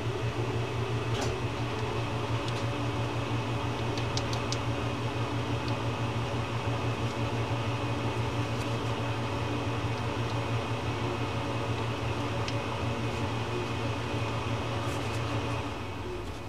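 A steady mechanical hum with a low drone, like a fan or blower running, which drops in level about a second before the end. A few faint clicks of small reel parts being handled sound over it.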